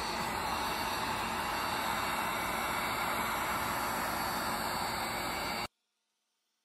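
Corded heat gun running, its fan blowing a steady hiss of hot air over the opened headlight housing to soften it for reassembly; the sound cuts off abruptly near the end.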